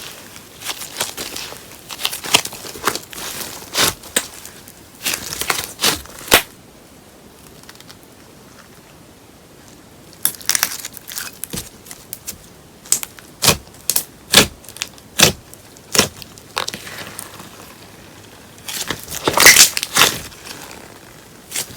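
Slime being squeezed and pressed by hand, giving irregular sticky clicks, crackles and pops. There is a pause of a few seconds in the middle, then a run of separate pops, and a dense burst of crackling near the end.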